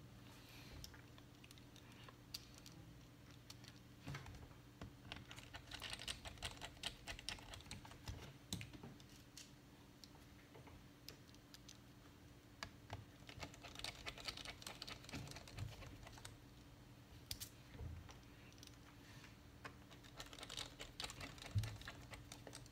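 Faint rapid clicking and tapping of small metal parts, screws and a small screwdriver being handled on a MacBook Pro's aluminium case during reassembly. The clicking comes in a few spells with quieter stretches between, over a steady low hum.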